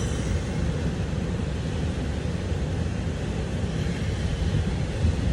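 Steady low rumble of ocean surf, mixed with wind buffeting the microphone.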